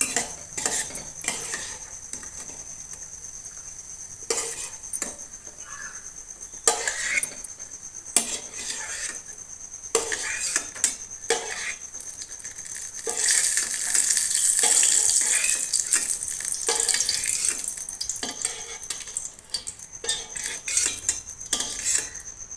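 Metal spoon scraping and clinking against a kadai as cashews frying in ghee are stirred and scooped out, with the ghee sizzling; the sizzle grows loudest a little past halfway.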